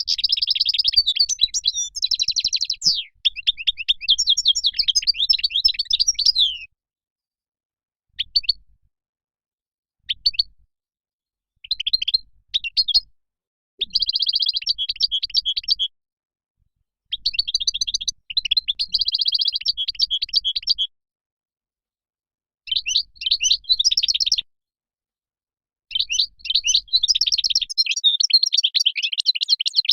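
European goldfinch singing: fast, twittering phrases of rapid chirps and trills, broken by short pauses. There is a long phrase at the start, a few brief snatches, then longer phrases again toward the end.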